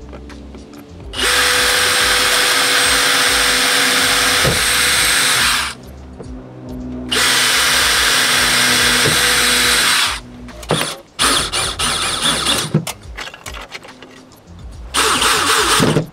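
DeWalt cordless drill boring into HardiePlank fiber-cement siding: two steady runs of about four seconds each, then several short stop-start bursts near the end as screws are driven into the plastic mounting plate.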